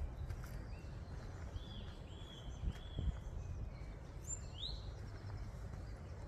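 Woodland birds calling in spring: three short arching notes in a row, then a quick rising note and a higher one about four seconds in, over a steady low rumble on the microphone.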